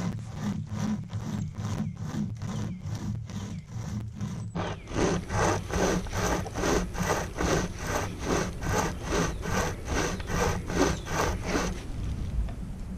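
Pocket chainsaw, a flexible toothed chain pulled back and forth by its handles, sawing through a hardwood log in even strokes at about three a second. The strokes get louder and harsher about four and a half seconds in, then stop about a second before the end.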